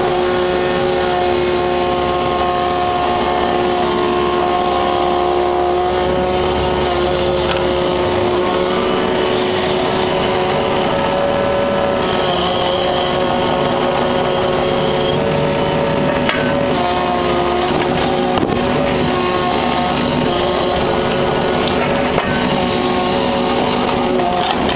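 Kubota KX61-3 mini excavator's diesel engine running steadily under working load, its pitch shifting a little as the hydraulics are worked, with a few sharp knocks now and then.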